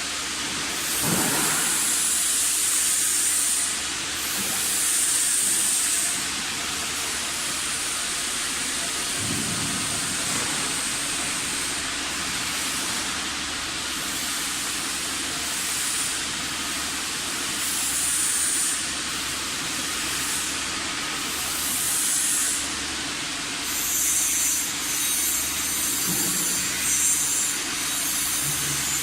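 Running machinery: a steady hiss of rushing noise over a faint low hum, with a sharper high hiss that swells and fades every couple of seconds.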